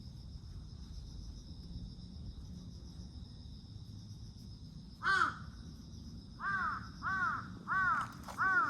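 A crow cawing: one caw about five seconds in, then four caws in quick succession near the end, over steady insect trilling.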